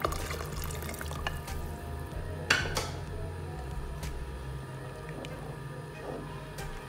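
Cornflour slurry poured from a cup into a metal pot of soup, splashing for about a second and a half, then a sharp knock about two and a half seconds in, followed by a spoon stirring the liquid.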